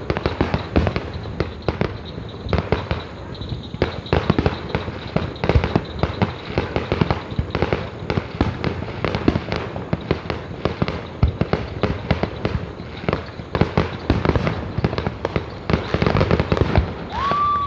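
Fireworks going off in quick succession, a dense, continuous run of bangs and crackles with no real pauses. A short whistling tone rises and falls near the end.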